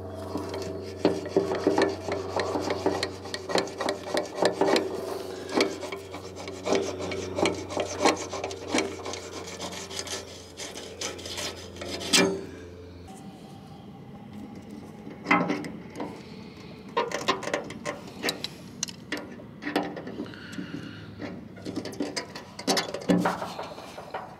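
Rusty steel release-valve fitting being wound out of an old hydraulic engine crane's pump housing with locking pliers: irregular grating scrapes and clicks of rusted metal turning against metal, with a few sharper knocks. A steady low hum runs underneath for the first half and then stops.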